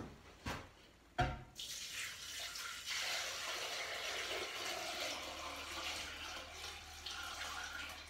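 Water poured from a jug into a container, a steady splashing stream that starts about a second and a half in and runs on. A single knock just before the pouring starts.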